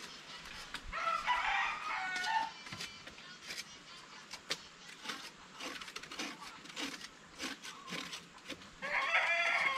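A rooster crows twice, about a second in and again near the end, over light clicking and scraping from knives peeling cassava roots.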